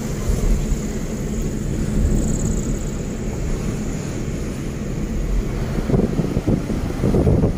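Car driving along a city road, heard from inside the cabin: steady low road and engine rumble, with wind buffeting the microphone from about six seconds in.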